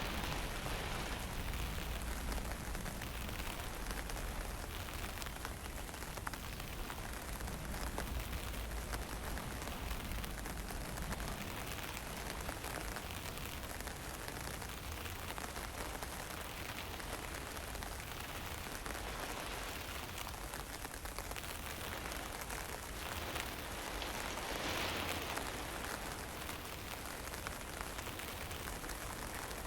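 Fine drizzle falling steadily, with wind buffeting the microphone as a low rumble, strongest in the first ten seconds or so.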